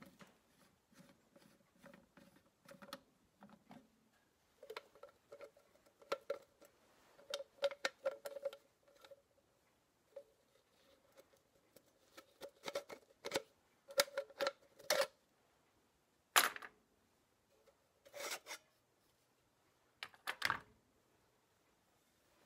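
Metal oil-bath air cleaner bowl of a Massey Ferguson 35 being handled at its housing: clusters of small metallic scrapes and clicks, with a held note under some of them, then three sharper clanks in the last six seconds.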